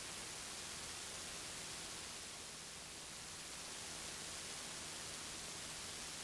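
Faint, steady hiss of static with a faint low rumble underneath: the noise floor of a cockpit headset and intercom audio feed when nobody is talking.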